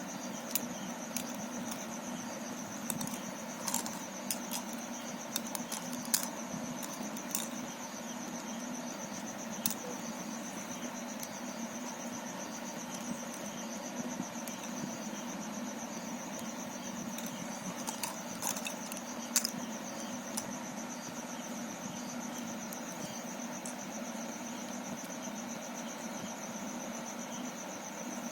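Scattered light plastic clicks of Rubik's cube pieces being handled and fitted together, clustered in the first ten seconds and again around twenty seconds in, over a steady high-pitched whine and a low hum.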